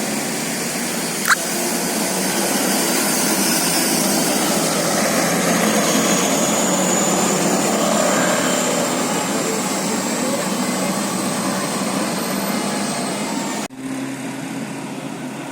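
Bus engine running with a steady rush of noise and a faint high whine that slowly rises, a sharp click about a second in, and an abrupt cut near the end.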